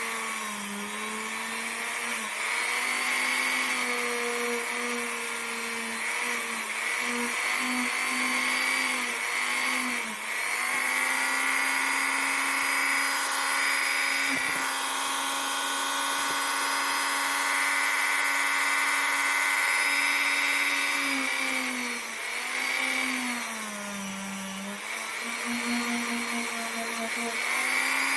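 Dremel rotary tool running at high speed, polishing the revolver's trigger. Its whine holds steady, then sags in pitch several times as it is pressed against the part and picks back up when eased off.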